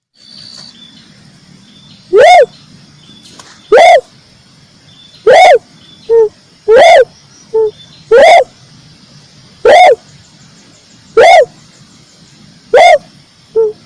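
Red turtle dove (red collared dove) calling: a string of loud, short, arched coos repeated about every one and a half seconds, with a few softer, shorter, lower notes between them.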